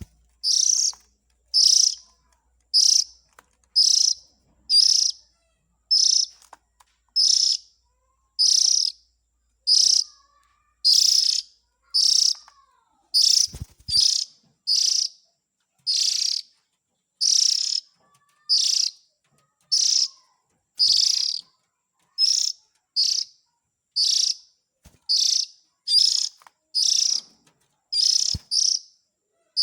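Oriental magpie-robin (kacer) calls, a short harsh call repeated over and over about once a second.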